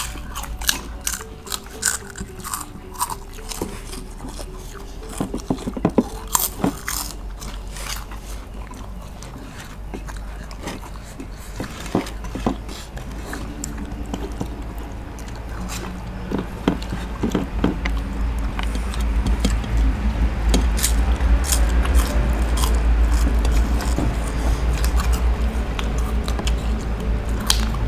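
People eating by hand from plates: chewing and crunching, with many small sharp clicks and taps. Quiet background music plays underneath.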